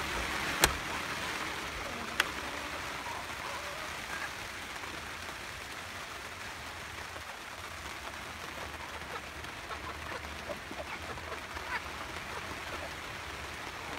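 Rain falling steadily. A metal door latch clicks sharply twice, under a second in and again about a second and a half later, and a few soft chicken clucks come near the end.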